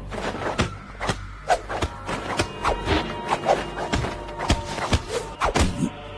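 Anime fight sound effects: a rapid, irregular run of a dozen or more punch, kick and block impacts, about three a second, over held background music tones.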